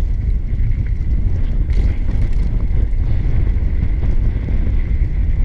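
Heavy wind rumble buffeting a GoPro's microphone as a mountain bike rolls along a dirt trail, with a faint steady high tone running through it.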